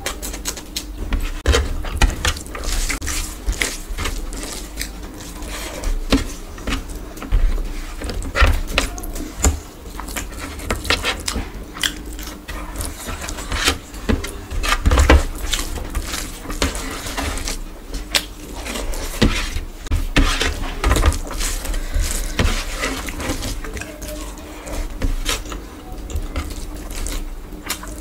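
Close-miked eating sounds: wet chewing and lip-smacking on handfuls of rice and meat eaten by hand, with fingers squishing and mixing rice on the tray, many irregular smacks and clicks over a faint steady hum.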